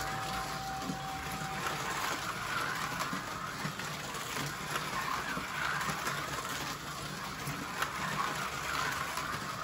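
Two Scalextric slot cars, a Ford XW Falcon and a Tyrrell F1 car, lapping a plastic track: small electric motors whining and tyres and guides running in the slots. The sound swells and fades again and again as the cars go round.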